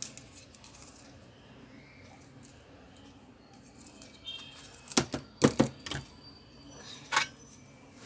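A few sharp knocks and clicks of tools and parts being handled on a workbench, bunched together about five seconds in, with one more about two seconds later, over a faint steady hum.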